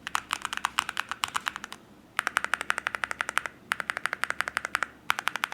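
Typing on an Akko MU01 wooden-case 65% mechanical keyboard with Akko V3 Piano Pro switches and MOA-profile keycaps: quick runs of keystrokes with short pauses between them. The sound is deep and not clacky.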